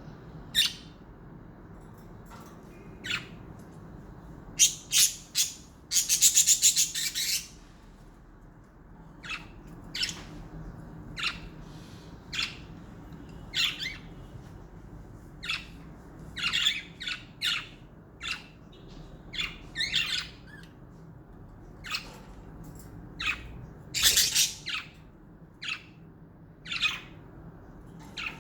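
Pet budgerigars giving short, sharp chirps and squawks at irregular intervals. There is a longer burst of rapid chatter about six seconds in and another about twenty-four seconds in.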